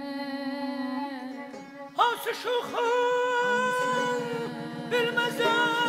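Azerbaijani mugham singing by a male voice with instrumental accompaniment. After softer held notes, the voice comes in loudly about two seconds in, with quick trilled ornaments, then holds long melismatic notes.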